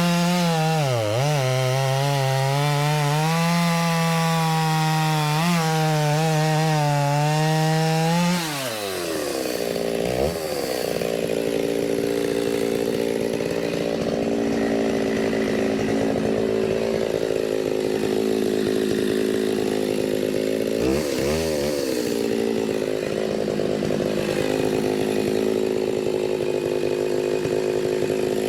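Stihl chainsaw running at high revs as it bucks oak rounds into firewood. It bogs briefly in the cut, drops to idle about nine seconds in, then revs back up and cuts again, with another short dip in pitch about two-thirds of the way through.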